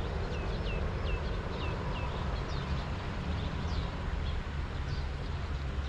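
A bird calling outdoors in a run of short, downward-sliding chirps, about two a second for the first two seconds, then a few scattered calls, over a steady low rumble.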